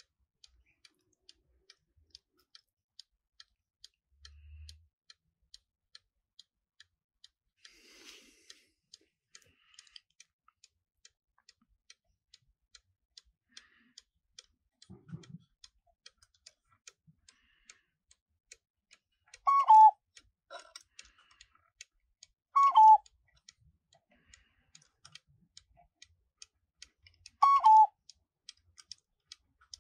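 Trenkle 624 NU one-day mechanical cuckoo clock ticking steadily, then its cuckoo sounds three single two-note calls, each falling in pitch, a few seconds apart. The calls are the quarter-hour call, set off each time the minute hand is turned by hand past a quarter mark.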